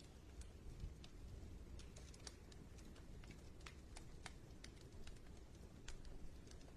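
Faint crackling of a wood fire in a fireplace: irregular small pops and snaps, a few of them sharper, over a low steady rumble of the flames.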